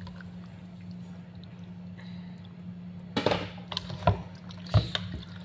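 Spoon stirring cooked macaroni into a thick creamy sauce in a metal pot: a wet squelching stir about three seconds in, then several sharp clacks of the spoon against the pot, over a steady low hum.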